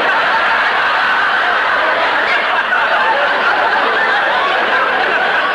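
Studio audience laughing, a long, steady wave of laughter, heard on a 1941 radio broadcast recording.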